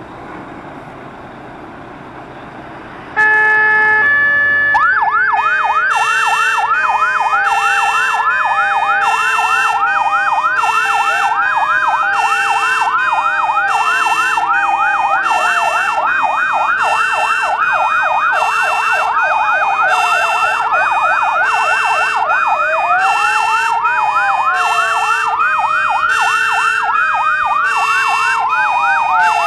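Several fire engines' sirens sounding together, starting suddenly about three seconds in: fast yelping sweeps, a two-tone hi-lo and slow rising and falling wails overlapping, with a pulsing tone repeating every second or so.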